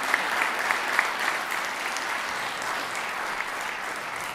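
Audience applauding, a dense patter of many hands that eases slightly toward the end.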